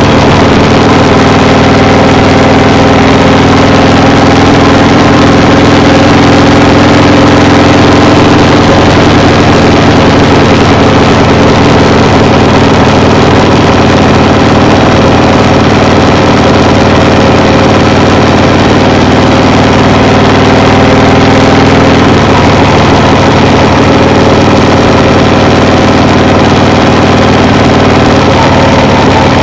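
Loud, steady engine drone with several held tones over a wide rushing noise; one of the lower tones fades away about 22 seconds in.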